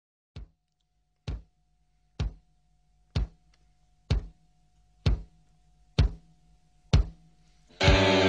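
Logo-intro sound design: eight deep drum-like hits about once a second, each louder than the last, over a faint steady hum. Near the end a loud burst of music with a held chord comes in.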